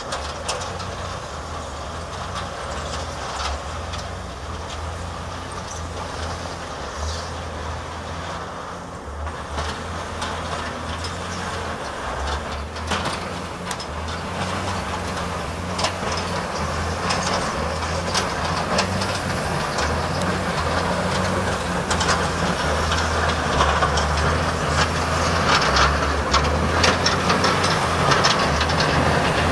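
Wheel loader's diesel engine running steadily as it plows snow along a sidewalk, growing louder as it approaches, with scraping and rattling from the blade on the packed snow and ice building up near the end.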